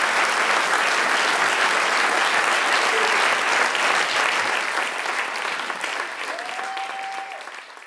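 Theatre audience applauding, steady at first and then fading out over the last few seconds.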